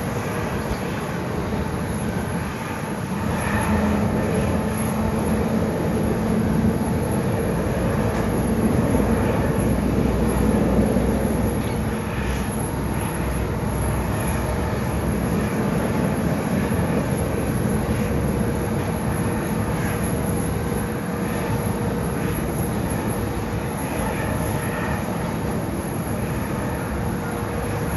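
Steady jet noise from an Airbus A350-900 with Rolls-Royce Trent XWB engines: a continuous rumble that swells a few seconds in, eases after about eleven seconds, and carries a faint steady hum.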